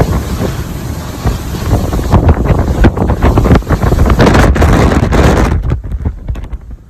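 Storm wind buffeting the microphone in loud, gusty rushes, dying down sharply about five and a half seconds in.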